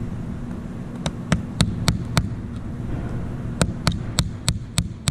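Small hammer lightly tapping a tiny nail through a plywood gusset plate into the wooden rib's strips. There are five evenly spaced taps starting about a second in, a short pause, then another run of about six taps near the end.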